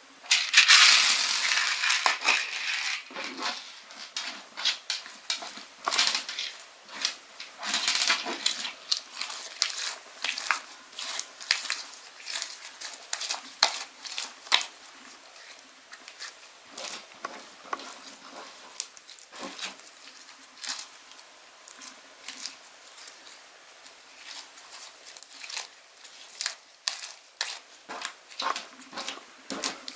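Slime being squeezed and pressed by hand, giving quick clicking and crackling pops. They come thick and loud for the first few seconds, then in scattered bursts.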